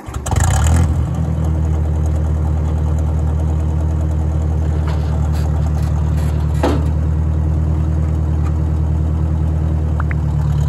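1957 Ford 641 Workmaster tractor's four-cylinder engine comes in abruptly, then runs steadily at idle.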